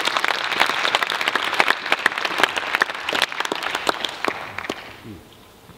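Audience applauding in a lecture hall, dying away about five seconds in.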